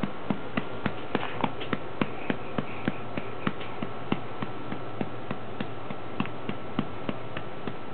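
A hand patting a baby's back through its clothes to bring up a burp: an even run of pats, about three a second.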